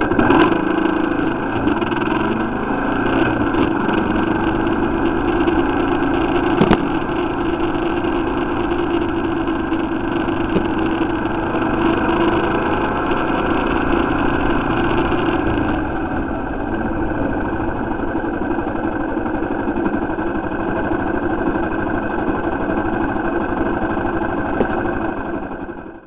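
Motorcycle engine running steadily while the bike is ridden, picked up on board, with a hiss over it that drops away about two-thirds of the way through and one sharp click about a quarter of the way in.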